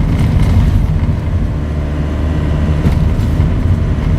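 Zil 131 truck's V8 engine running steadily, a loud, even low rumble.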